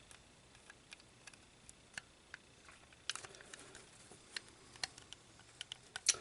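Light, irregular clicks and taps of plastic parts being handled and fitted: the back panel of a plastic remote control case being hooked into the front panel.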